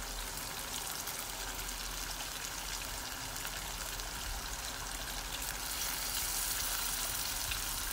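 Curry sizzling and simmering in a metal pan on the hob: a steady hiss that grows a little louder about six seconds in.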